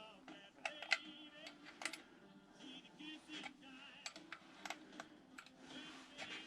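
Irregular light metallic clicks and taps from hand tools and small hardware as nylock nuts and washers are fitted onto the motorcycle brake plate's bolts.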